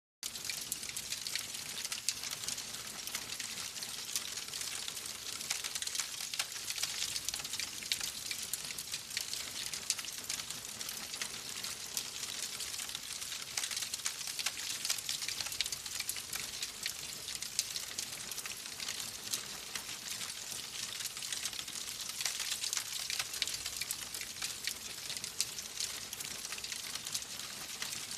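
Fire crackling in a fireplace: a steady hiss thick with small pops and snaps.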